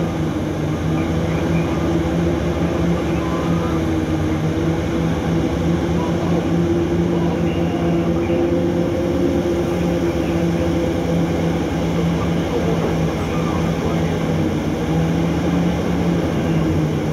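Steady drone of the heavy diesel engines of a Hitachi EX3600 mining excavator working beside a loaded haul truck. The pitch holds nearly level throughout.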